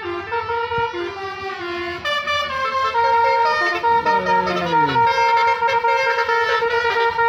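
Bus telolet basuri horn, a multi-tone horn, playing a tune as a quick run of stepped notes. About four seconds in, one note slides down in pitch.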